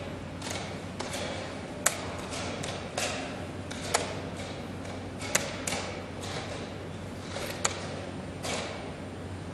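Wooden chess pieces set down on the board and the chess clock's buttons pressed in a fast blitz game: a string of taps and sharp clicks every second or two, four of them louder, over a steady low hum.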